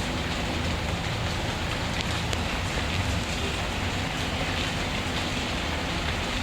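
Steady rainfall with a wood fire crackling faintly now and then.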